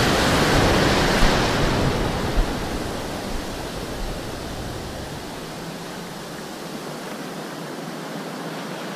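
Surf breaking around the legs and washing through the shallows: a loud rush at first that fades over the next few seconds into a softer hiss of foam.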